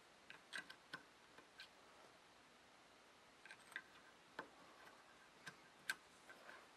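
Faint, irregular light clicks of a metal loom hook tapping against plastic knitting-loom pegs as loops of yarn are lifted onto them.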